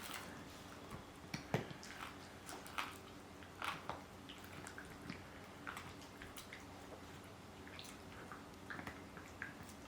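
Shiba Inu gnawing on a dried Achilles tendon chew: irregular cracks and crunches, with a few sharper ones in the first four seconds.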